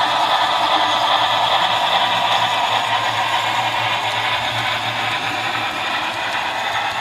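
Model train of a D&RGW L-131 2-8-8-2 steam locomotive and passenger cars running along the track: a steady rolling clatter of wheels on rail with a low hum beneath, growing slightly fainter as the train moves away.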